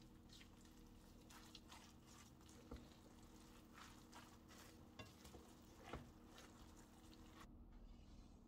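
Faint stirring of spinach, carrots and vermicelli in a frying pan with a silicone spatula: soft rustling with a few light taps against the pan, over a low steady hum. The rustling stops about seven and a half seconds in.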